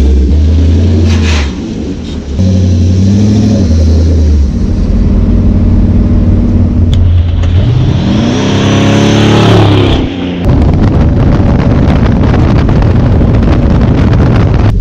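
Pickup truck engine revving in short blips while standing, then the truck accelerating up and past with its engine note rising and then falling away. After that comes a steady engine drone with road and wind noise, heard from a camera riding on the truck's side.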